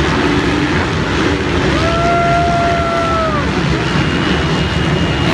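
A pack of motocross dirt bikes racing, many engines revving and overlapping in a loud, continuous drone. A higher engine note rises, holds for about a second and a half, then falls around the middle.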